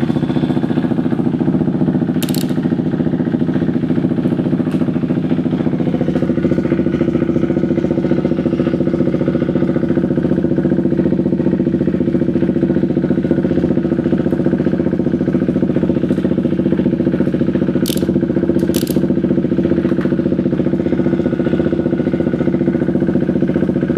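KTM Duke 390's single-cylinder engine idling steadily, with a few faint clicks about two seconds in and again near the end.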